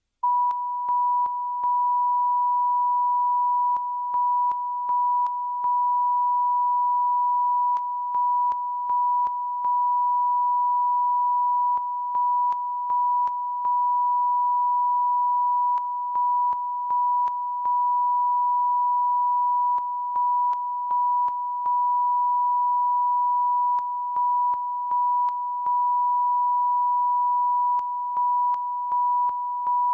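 Continuous, pure, high-pitched test tone that cuts in abruptly from silence, the off-air tone of a TV channel that has shut down. Its level dips briefly three times, with faint clicks, about every four seconds.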